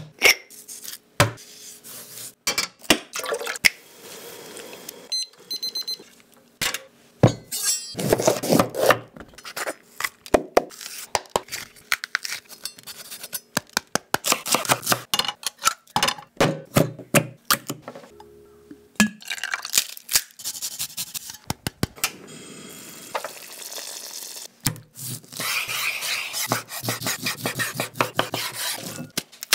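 Food preparation on a wooden cutting board: many sharp knife taps and knocks, the crisp snapping and tearing of a bell pepper pulled apart by hand, and near the end a quick run of knife chops through cooked chicken.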